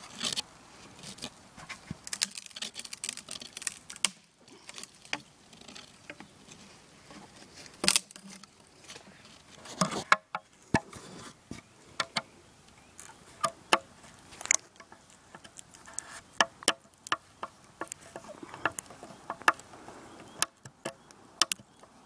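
Irregular small clicks and knocks, a few of them louder, scattered over a faint steady background.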